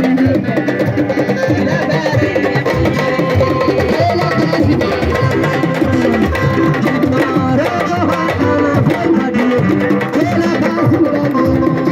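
Music with hand drums and other percussion playing a steady beat under pitched melodic lines.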